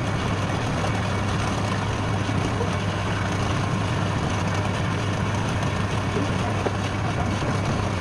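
Woodturning lathe running with a steady motor hum and an even hiss.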